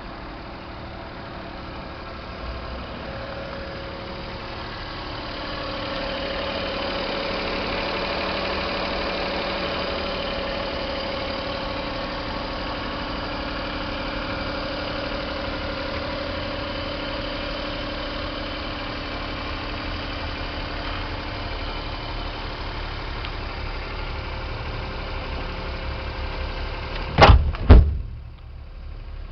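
Daihatsu Hijet mini truck's small engine idling steadily, louder from about five seconds in. Near the end come two loud knocks about half a second apart.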